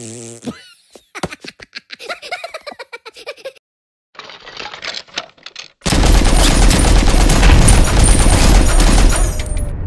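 Cartoon machine-gun sound effect: about three seconds of loud, rapid continuous fire with blasts, starting about six seconds in and then tailing off. Before it come short clicks and a squeaky cartoon voice.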